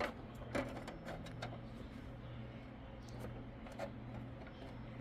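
Faint handling sounds of a small plastic toy figure on a plastic dollhouse: a few light clicks and taps as it is moved and set down on the floor, over a low steady hum.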